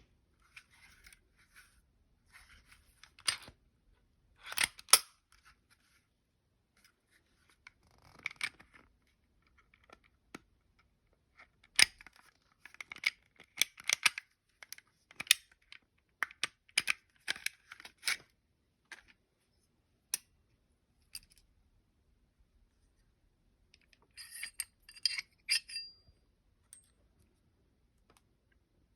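Glock 29 pistol being handled and stripped: a series of sharp metallic clicks, slides and scrapes of its steel and polymer parts, with a quick run of ringing metal clicks near the end.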